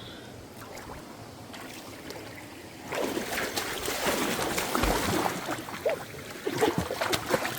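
Water splashing and sloshing in irregular bursts, starting about three seconds in after a quieter stretch.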